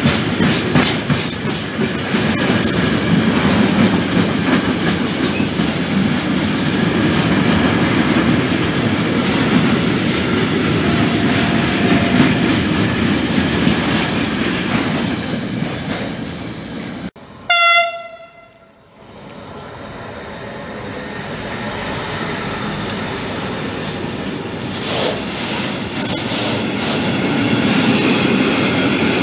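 Freight wagons rolling past close by with a steady rumble and wheel clatter. After an abrupt break, a locomotive gives one short horn blast, and a second freight train builds up and rolls through with the same clatter.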